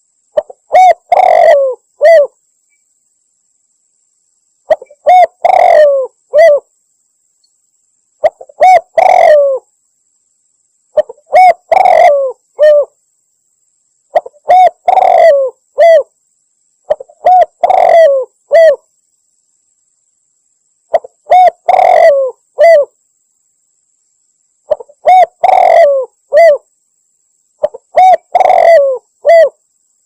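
Spotted dove (tekukur) cooing as a bird-lure call, one phrase about every three and a half seconds. Each phrase is a couple of short coos, a longer rolling coo, and a short closing coo.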